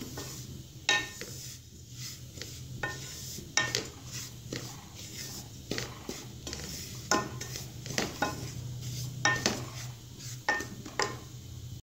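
Wooden spoon stirring semolina roasting in oil in an aluminium saucepan: irregular scrapes and light knocks against the pan's sides and bottom. The stirring is kept up nonstop so the semolina does not burn.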